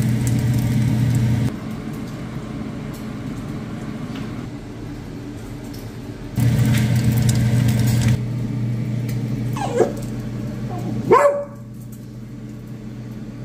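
Cocker spaniel giving two short, high yelping barks about a second apart, begging for food. A steady low hum runs underneath, louder at the start and for a couple of seconds in the middle.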